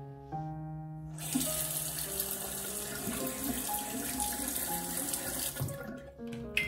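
Water running hard from a tap, starting about a second in and stopping near the end, over soft piano music.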